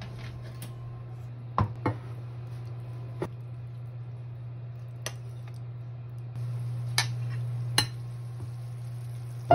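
Metal spoon clinking against a ceramic baking dish while meat sauce is spooned and spread into it: about six sharp clinks at uneven intervals, over a steady low hum.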